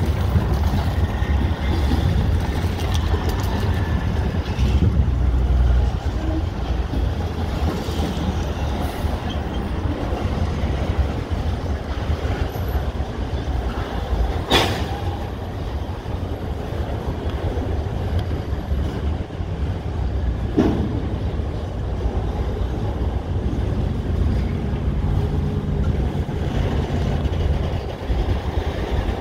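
Freight train cars rolling past at steady speed, a continuous low rumble of steel wheels on rail. A sharp metallic knock sounds about halfway through, and a fainter one about six seconds later.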